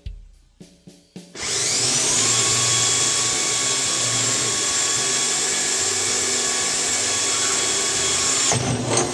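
Hand-held electric drill boring a bolt hole through the bottom of a plastic 55-gallon drum. The motor spins up with a quick rising whine about a second in, runs steadily for about seven seconds, then stops abruptly near the end.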